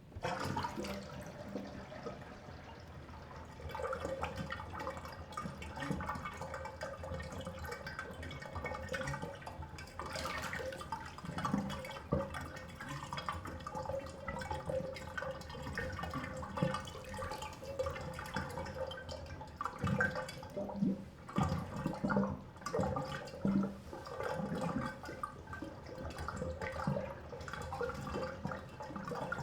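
Bathtub draining: water running down the plughole with a steady gurgle, breaking into louder, irregular gulps about two-thirds of the way through.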